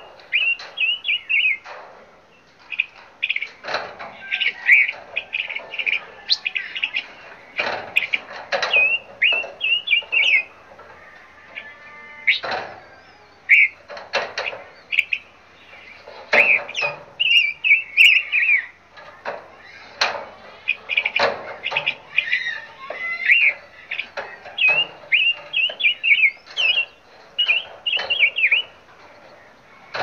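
Several birds chirping and calling in quick short phrases, with louder harsh calls breaking in every second or two.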